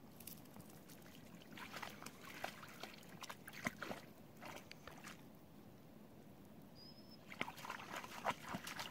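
A border collie wading in lake shallows: faint splashing and sloshing of water around its legs, in two bouts with a pause between. A brief high chirp comes just before the second bout.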